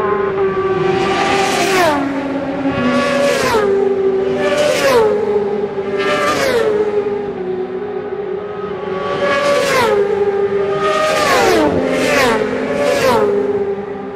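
Supersport racing motorcycles passing flat out one after another, each engine note dropping in pitch as it goes by. About eight pass, in two bunches of about four with a short lull in the middle.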